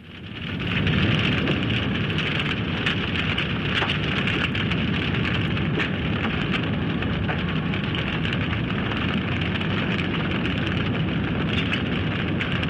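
A large fire burning with a steady roar and scattered crackles and pops. It fades in over about the first second, then holds steady.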